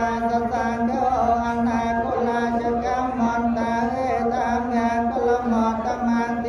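Buddhist monks chanting Pali verses on a steady, nearly level pitch.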